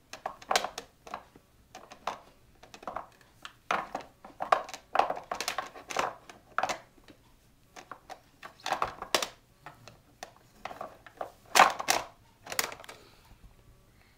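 Irregular knocks and clatter of toys being handled and banged together by a baby, a small wooden block among them.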